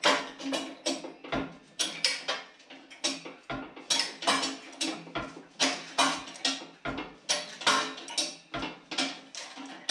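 Sheet-metal shrinker clacking as its jaws are pumped again and again on the edge of a steel panel, about two to three strokes a second.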